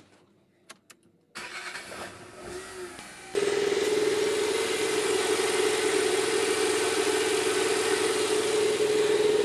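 Renault Kwid's three-cylinder petrol engine is started about a second in, then idles steadily with a strong even hum, heard from under the car close to the newly replaced silencer.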